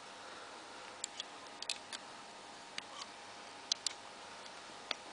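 Small, sharp metallic clicks and ticks, about nine scattered irregularly, as an Allen key is worked in the holes of a KJW M700 rifle's barrel nut and turned to loosen it.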